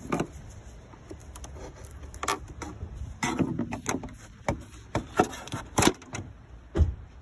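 Plastic air intake tube and its metal hose clamp being worked loose and pulled off the airbox by hand: irregular sharp clicks, knocks and plastic clatter.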